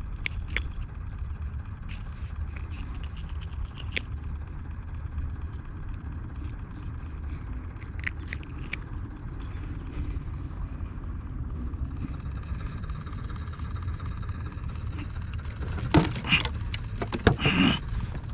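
Wind buffeting the microphone as a steady low rumble, with scattered small clicks and a brief louder pitched sound near the end.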